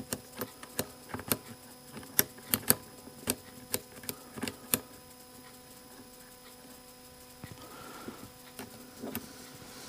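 Small metal parts of a DeWalt impact driver's quick-change chuck clicking and tapping as they are fitted and tried: about a dozen irregular sharp clicks over the first five seconds, then softer handling.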